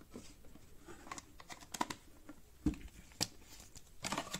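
Cosmetic jars and packaging being handled in a cardboard box: a few light clicks and taps, a dull knock about two-thirds of the way through, then a crinkly rustle of packaging starting near the end.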